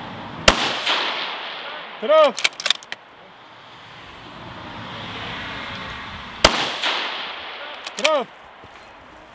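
Two shots from a scoped bolt-action precision rifle about six seconds apart, each with a long rolling echo. A second or so after each shot comes a brief cluster of sharp clicks and a short ringing tone.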